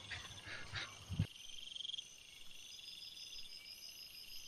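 Insects chirping in a steady, high, pulsing trill, with a few soft low thumps in the first second or so.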